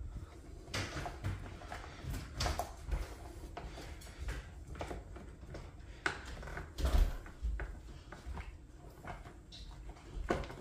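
Hand screwdriver turning a screw into the plastic steering column of a kids' ride-on toy ATV: irregular clicks, creaks and rubbing of the plastic parts as the screw is driven tight, with a louder knock about seven seconds in.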